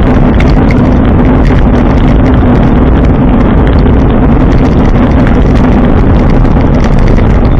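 Loud, steady rush of wind and road noise on the microphone of a camera riding along on a bike, with a steady low hum under it.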